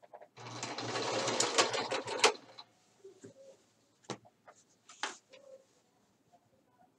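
Sewing machine running, stitching a seam for about two seconds and then stopping. A couple of short, sharp clicks follow.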